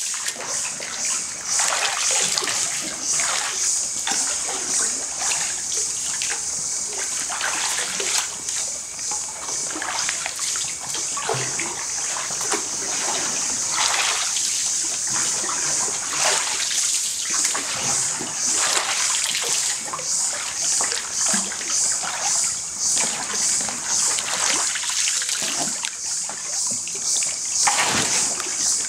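Bamboo pole dipping and pushing through the water as a bamboo raft is worked along, splashing and sloshing about once a second or so. A steady high hiss lies behind it.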